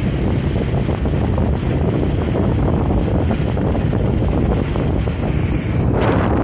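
Wind buffeting the microphone on a moving motorcycle, over a steady low drone of motorcycle engines, with a brief swell of higher noise near the end.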